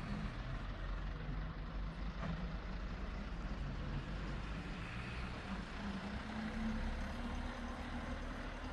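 Light-duty Isuzu garbage compactor trucks' diesel engines running at low speed as the trucks drive slowly past in a line. The engine hum grows louder around six to seven seconds in as one truck passes close.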